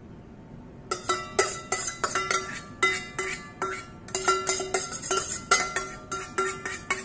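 Metal tablespoon scraping and knocking inside a stainless steel mixing bowl to scrape out the dressing, the bowl clinking and ringing about three times a second, starting about a second in.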